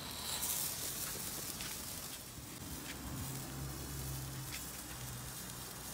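Hand-held spray firework catching light at a candle and burning with a steady hiss, loudest in the first second, with a few sharp crackles.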